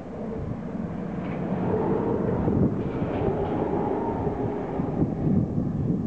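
Electric locomotive approaching along the track: a rumble of wheels on rails that swells towards the middle, with a steady electric hum over it.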